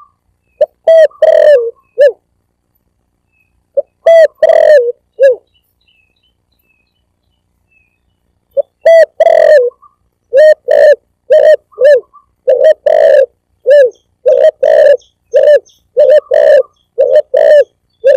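Spotted dove (tekukur) cooing loudly in repeated coo phrases: two short groups early, a pause of about three seconds, then a long run of coos about two a second. This is a bird-lure call recording used to draw tekukur in.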